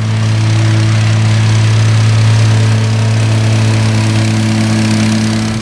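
Gas-powered plate compactor running steadily, its small engine and vibrating steel plate tamping down the dug-out soil bed for pavers.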